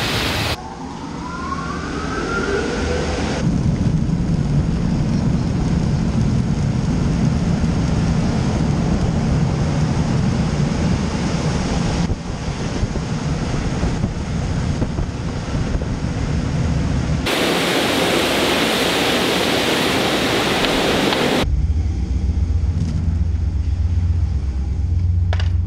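Automatic tunnel car wash running around an open-top Jeep: a loud, steady rush of water spray and spinning brushes. A rising whine comes about a second in, a harsher hiss of spray follows later, and a deep rumble of blowing air comes near the end.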